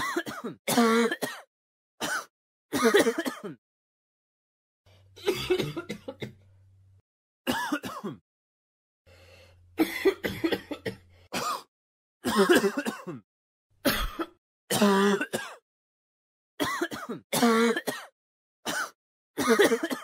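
A person coughing again and again: about fifteen short coughs and throat-clearings, each separate, with brief silences between them. A faint low hum sits under two of the longer ones, around five and ten seconds in.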